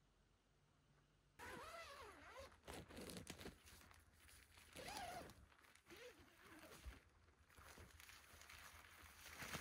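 Near silence, then about a second and a half in a canvas tent's door zipper and fabric start rustling as someone works the door open and climbs out. A few short wavering pitched sounds are mixed in.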